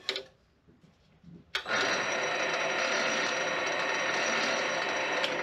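A switch clicks, then about a second and a half in the D0816HP mini lathe starts up through the foot switch. Its motor and spindle run steadily with a hum and several high, steady tones. Another click comes near the end.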